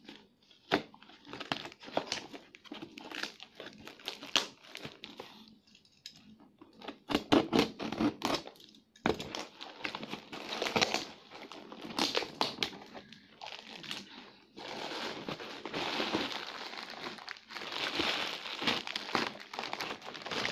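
Plastic wrapping and heavy packing tape on a parcel being cut with scissors and torn open in a series of short rips and snaps. From about 14 seconds in comes a longer stretch of continuous crinkling as a clear plastic bag is handled.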